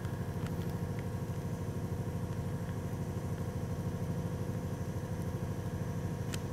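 A steady low machine hum runs throughout, with a few faint ticks over it.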